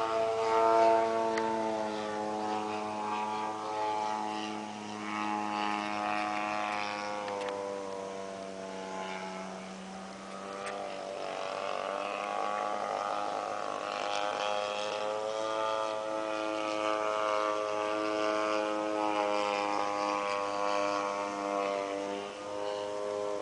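A small propeller engine drones steadily, its pitch sinking a little and rising again as it goes, then cuts off abruptly at the end.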